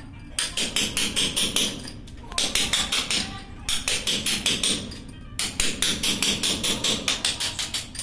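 Hammer striking a chisel held against the floor beside the toilet outlet, chipping the floor in quick taps, about six a second, in three runs with short pauses between.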